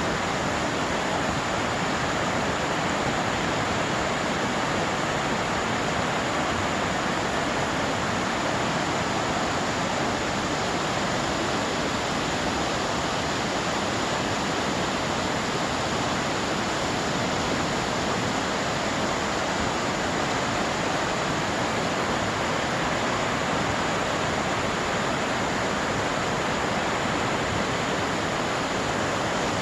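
Flowing water rushing steadily, an even hiss without breaks.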